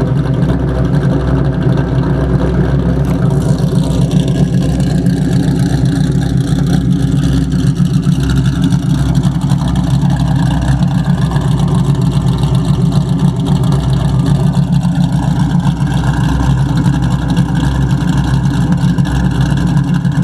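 Modified 1999 Ford Mustang GT 4.6-litre V8, fitted with longtube headers and an SLP catback exhaust, running steadily with a tapping noise whose cause the owner has not found.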